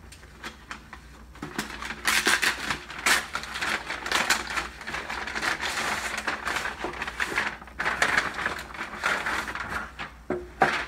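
Plastic Priority Mail mailer crinkling and crackling as it is handled, opened and boxes are slid out of it. Near the end a box knocks down onto a wooden tabletop.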